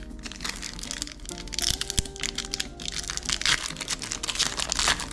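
Foil wrapper of a hockey trading-card pack crinkling as it is torn open by hand, a dense crackle over background music.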